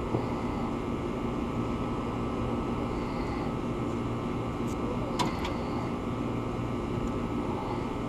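Air conditioning unit running with a steady low hum and fan noise. A light click about five seconds in.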